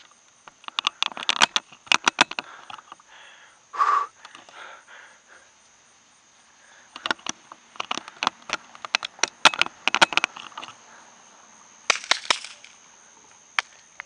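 Irregular clicks and knocks in clusters, from the camera being handled and moved. Under them runs a steady high trill of crickets.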